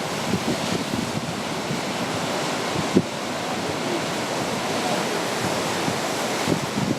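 Ocean surf washing in steadily, with wind buffeting the microphone in low thumps and one sharp gust hit about three seconds in.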